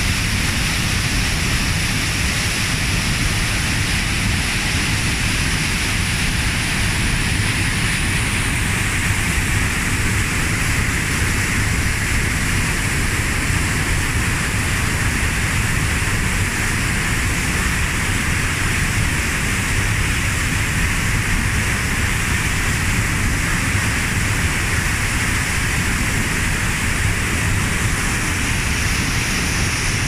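Steady, loud rush of a waterfall: falling water crashing without a break.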